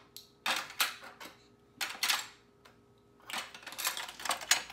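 Hard plastic toy fish from a fishing game clattering and clicking as they are dropped and pushed back into the game's pond tray, in three short bursts of rattles.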